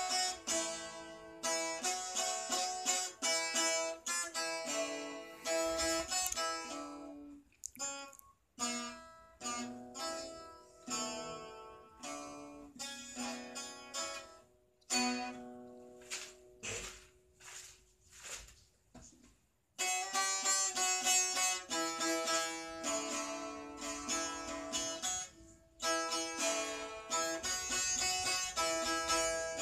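Solo bağlama (Turkish long-necked saz) played by plucking, in quick runs of notes. In the middle the playing thins to slower, separate notes with short gaps, then fast, louder playing starts again about two-thirds of the way through.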